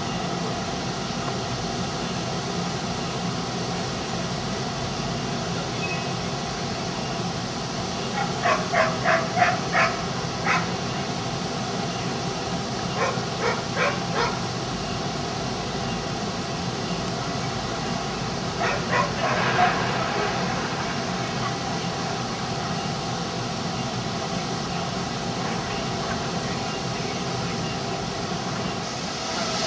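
A dog barking in three short bouts of quick barks, over steady background noise.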